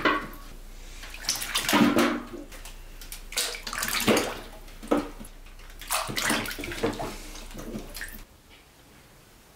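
Water splashing and sloshing in a stainless steel basin as a hand moves pork leg bones around in it, in irregular splashes about a second apart. The splashing stops shortly before the end.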